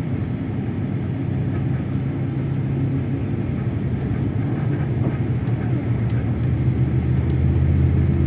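Steady low rumble of a road vehicle driving along, engine hum mixed with road noise, growing slightly louder near the end.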